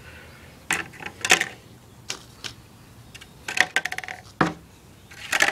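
Plastic net pots being dropped into black plastic one-gallon nursery pots: a string of sharp plastic clicks and knocks at irregular intervals, some bunched together about three and a half seconds in and near the end.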